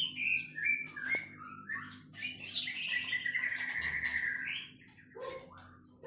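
White-rumped shama (murai batu) singing: a run of varied short chirps and whistles, with a longer trilled phrase about halfway through.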